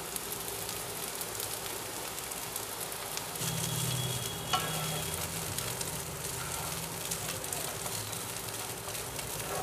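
Soaked flattened rice (chira) with onions sizzling in oil in a nonstick frying pan over a medium gas flame, stirred with a wooden spatula that clicks and scrapes against the pan. A low hum joins for a couple of seconds about three and a half seconds in.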